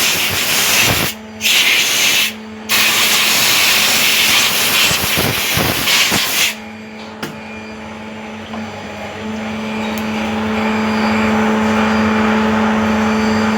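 CNC lathe: a loud hissing spray that cuts out twice briefly and stops about six and a half seconds in, leaving the machine's steady humming tone, which slowly grows louder toward the end.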